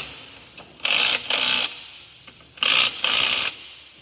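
A small power tool whirring in two pairs of short bursts, about a second in and again near the end, as a fastener under the car is run out.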